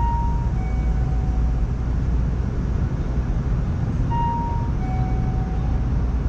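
A two-note falling chime sounds twice, about four seconds apart, over the steady low hum of a stopped electric train at a station platform.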